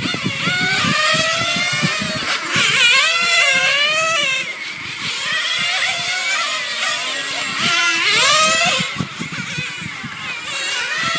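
Several nitro RC touring cars with Novarossi glow engines racing round a track, their high-pitched engine notes overlapping and rising and falling as the cars accelerate and slow for the corners.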